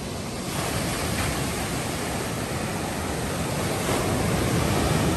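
Rough high-tide surf breaking on a beach: strong waves washing in as a steady rush that swells louder about a second in and again near the end.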